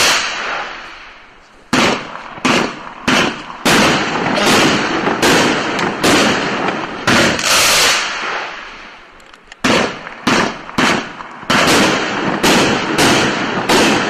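Winda 'The Most Wanted' P5468 32-shot fireworks cake firing shot after shot, about one to two a second. Each shot is a sharp report followed by a noisy tail. The firing starts a little under two seconds in, dips briefly past the middle, then carries on.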